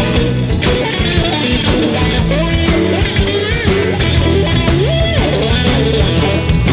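Background rock music led by guitar over a steady beat.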